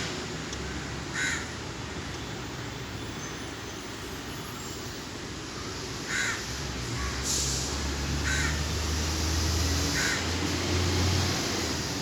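A bird calling in short calls, about five of them a few seconds apart, over a low steady hum that grows louder from about six seconds in.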